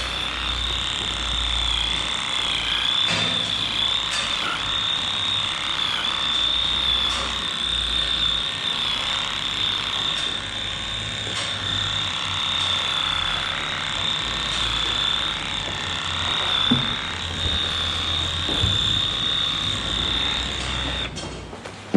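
Handheld electric animal clipper running with a steady high-pitched buzz, cutting the long hair at the end of a cow's tail. The motor cuts off near the end.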